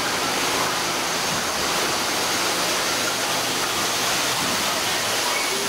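Steady rushing of falling water, like a waterfall, at an even level.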